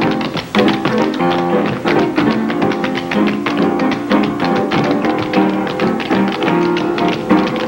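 Tap shoes striking a wooden stage floor in quick, dense rhythms, several dancers at once, over piano accompaniment.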